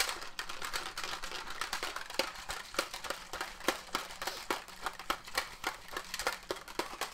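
Plastic shaker bottle of drink being shaken by hand, giving a fast, irregular run of clicks and rattles with the liquid sloshing inside.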